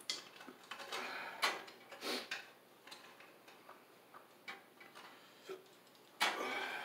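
Scattered light clicks and taps from hands and small tools working at a boiler's circulating pump and its wiring, with a short rustling scrape near the end.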